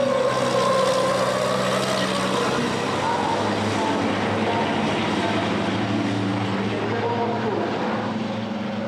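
MAN race truck's turbodiesel engine running hard as the truck passes close by and pulls away round the circuit, its engine note carrying steadily and fading a little near the end.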